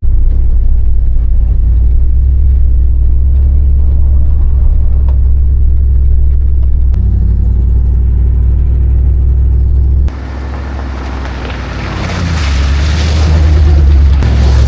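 A motor vehicle's engine running at a steady pace on the move, a heavy low drone. About ten seconds in it cuts abruptly to a rougher, noisier stretch that builds up louder again.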